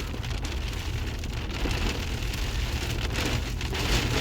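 Hail falling, a dense steady shower of small ice pellets striking the ground and nearby surfaces.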